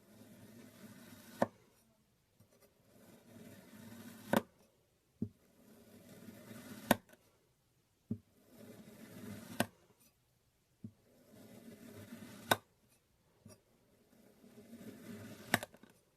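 Kinetic sand being cut with a blade: a soft crunching as the blade sinks through the sand, each stroke ending in a sharp tap as it meets the surface beneath. About six cuts follow one another every two and a half to three seconds, with lighter taps in between.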